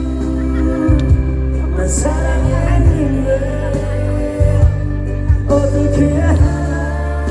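Live amplified pop music: a singer's voice carried over a band with a heavy bass line.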